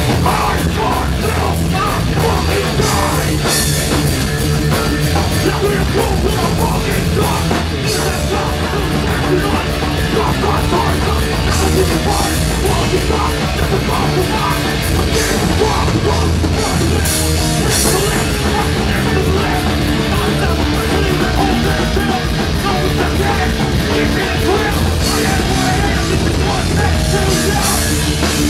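Hardcore band playing live, loud and continuous: distorted electric guitars, bass and drum kit, with a vocalist shouting into the microphone.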